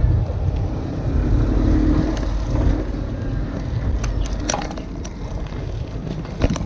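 Wind rumbling on the microphone of a moving bicycle rider. A motor vehicle passes with a brief hum about a second in, and there are two sharp knocks from the bicycle toward the end.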